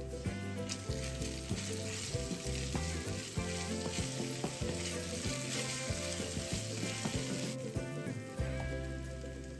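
Food sizzling as it fries in a pan, with a steady hiss that cuts off about three-quarters of the way through. Soft background music plays underneath.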